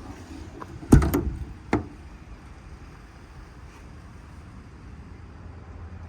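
Metal compartment door on a truck's service body being shut: a loud bang about a second in with a quick second clack, then a lighter knock just after. A steady low rumble of wind follows.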